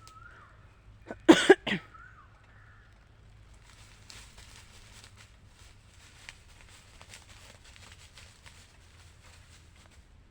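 A dog gives three quick barks or yelps about a second in, with a faint wavering whine around them, then a long run of light crackling and rustling, like paws or feet moving through dry leaves and brush.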